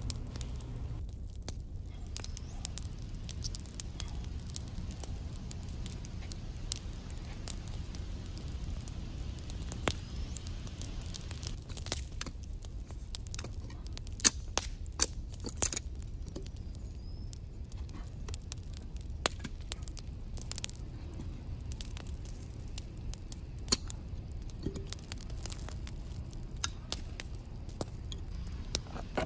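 Wood campfire crackling and popping at irregular moments, with a few sharper knocks about halfway through and once near the end, over a steady low rumble.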